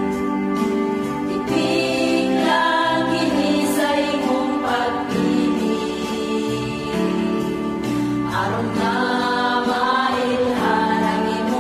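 Women's choir singing a Christian song in harmony, over backing music with a low bass line.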